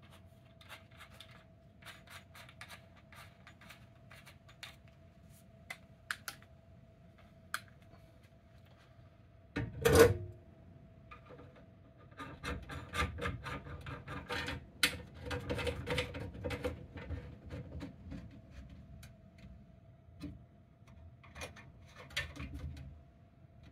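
Small plastic-and-metal handling clicks and scrapes as a 1-inch PVC conduit male connector is seated in a meter base's bottom knockout and its lock nut is tightened on from inside the box. There is one louder knock about ten seconds in, followed by a long stretch of rubbing and scraping.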